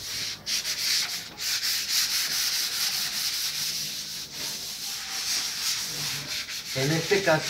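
Wet-or-dry (water) sandpaper rubbed by hand over a varnished wooden cabinet shelf, giving a steady scratchy hiss. The sanding levels the varnish coat so it comes out smooth.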